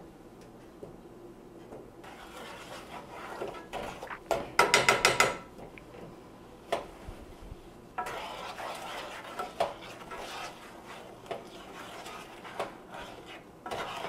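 Wooden spoon stirring butter, sugar and milk in a metal pot, scraping and rubbing against the pot's sides and bottom. About five seconds in comes a quick run of about six knocks, the loudest part, with single clicks and taps scattered through the stirring.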